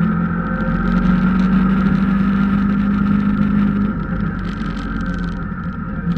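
A vehicle's engine runs steadily with road noise while driving through a rock tunnel. The hum drops a little about four seconds in.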